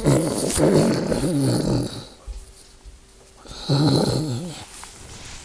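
A person imitating an animal with their voice: two calls that waver in pitch, the first about two seconds long, the second shorter, beginning about three and a half seconds in.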